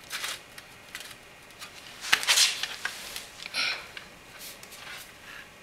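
Whitney hand punch scraping and sliding across a sheet-metal panel as its die point is dragged to find the center-punch mark, with a sharp metallic click about two seconds in and a few short rasps after it.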